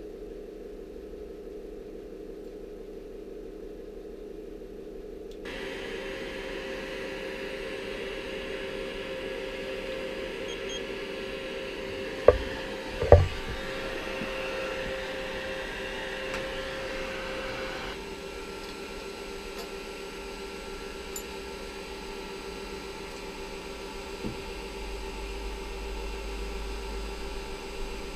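Bosch heat gun running with a steady fan whirr as it heats the final drive housing. The hiss is louder for a stretch in the middle, and two sharp knocks come about halfway through.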